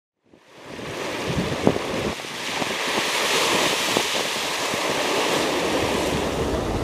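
Sea surf breaking and washing over a rocky breakwater, with wind blowing on the microphone. The sound fades in just after the start, and a few short knocks come through, the sharpest about two seconds in.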